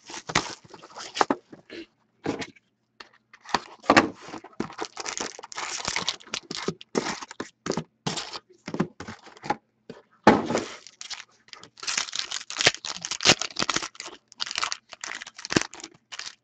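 Hockey card box and pack packaging being torn open and crinkled by hand: irregular bursts of tearing and rustling wrapper with short pauses between, a few of them louder.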